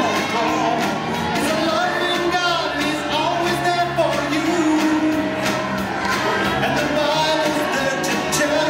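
Music with a moving melody line over accompaniment, played for a puppet number.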